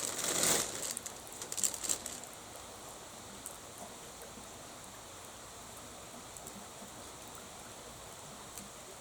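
Wood campfire burning with a steady hiss and scattered small crackles, with a louder rush of crackling and pops in the first two seconds.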